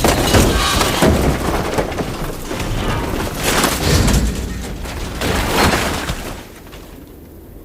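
Scrap metal debris falling and crashing onto the ground: a dense run of clattering metal impacts and rattling that dies away a little after six seconds in, leaving a low background rumble.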